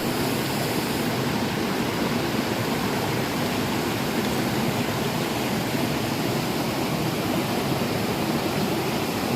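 Creek water rushing, a steady, even noise.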